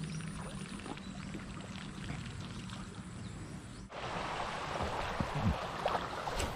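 Shallow stream water running over stones, quiet at first under a low steady hum, then louder and fuller after an abrupt cut about four seconds in.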